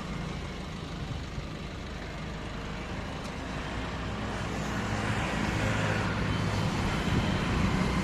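Road traffic: motor vehicles passing on a road, a steady engine hum and tyre noise that grows louder over the last few seconds as a vehicle comes closer.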